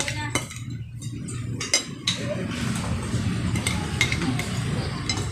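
Forks clinking against plates and glass bottles knocking on a wooden table as people eat noodles: a scatter of sharp clinks over a steady low hum.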